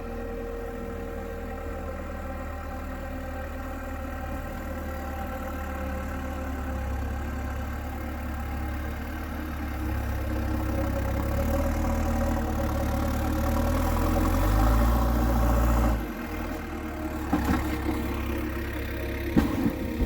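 JCB earthmover's diesel engine running steadily, its low drone building under load until about three-quarters of the way through, then dropping back suddenly. A few sharp knocks and clanks come near the end.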